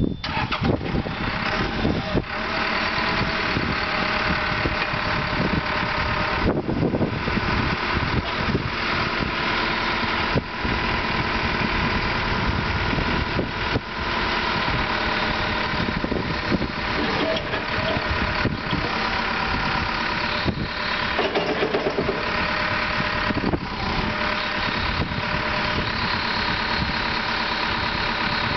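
Caterpillar 414E backhoe loader's diesel engine starting right at the outset and then running steadily at idle.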